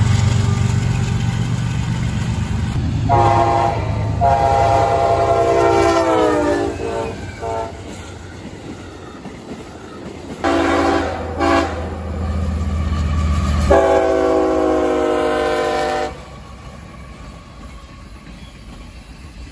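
Diesel freight locomotives rumbling past and sounding their air horns: a long multi-note horn chord about three seconds in that falls in pitch as it passes, two short blasts around the middle, and another long chord later on.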